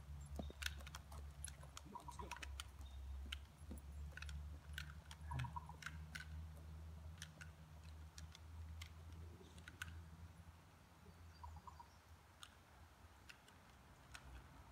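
Faint, irregular sharp clicks and snaps over a steady low rumble. The clicks come thicker in the first half and thin out toward the end.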